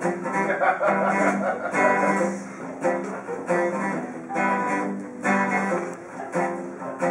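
Acoustic guitar being strummed, chords struck every second or so and left to ring between strokes.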